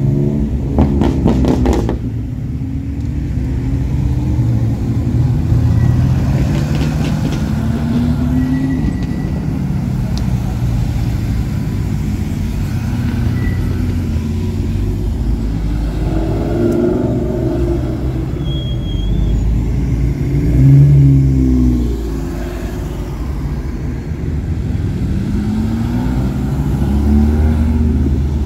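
Several cars driving past one after another, their engines revving as they pull away, with the loudest pass about two-thirds of the way through.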